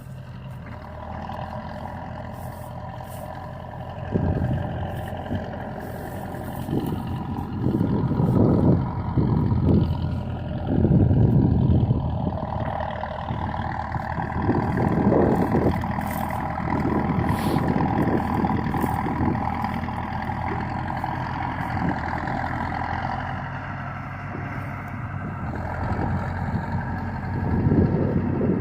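Bulldozer's diesel engine running steadily, with repeated swells of low rumble every few seconds.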